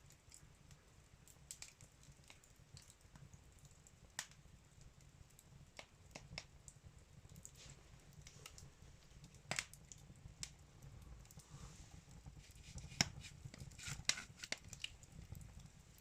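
Wood fire in a fireplace crackling faintly, with irregular sharp pops and snaps; the fire is newly lit and still catching.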